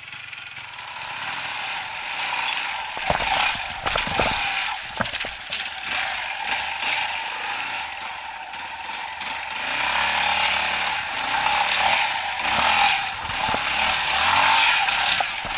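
Off-road motorcycle engine revving unevenly as a trail bike works up a steep slope, rising and falling in level, with several sharp knocks between about three and six seconds in.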